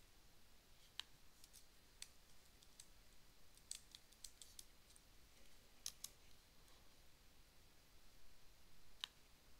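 Faint computer mouse clicks over near-silent room tone: a scattered handful of sharp ticks, several bunched together in the middle and one more near the end.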